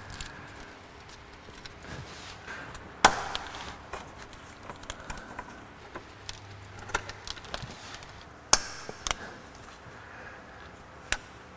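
Hand tools clicking and knocking against the rusted lower radiator fasteners under the car, a few sharp irregular metal clicks, the loudest about three seconds in and again at eight and a half seconds. The fastener is seized and does not come loose.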